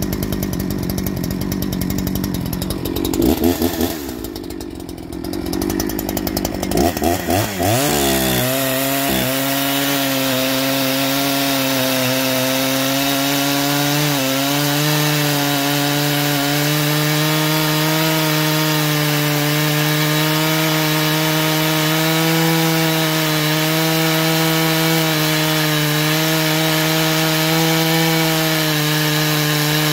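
G272 clone chainsaw with a 36-inch bar and full chisel chain cutting a 32-inch green hardwood log. It revs unevenly for the first few seconds, dipping and surging. About eight seconds in it settles into a steady, slightly wavering note under load in the cut.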